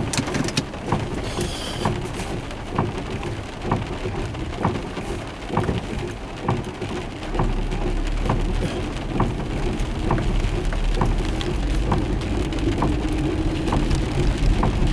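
Thunderstorm rain falling, with individual drops ticking sharply close by. A steady low rumble comes in about halfway through.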